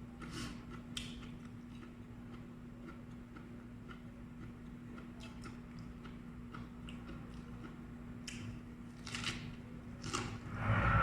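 Mouth sounds of someone chewing crunchy raw vegetables: scattered crisp bites and crunches over a steady low hum. A loud hiss of noise sets in near the end.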